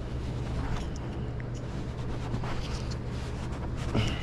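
Steady low mechanical hum with a few faint light clicks as a pull rope is worked into the plastic pulley of a recoil starter.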